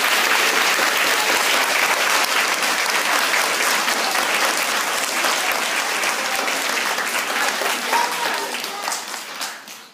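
A large group of children and adults applauding: dense, steady clapping that thins out and fades near the end.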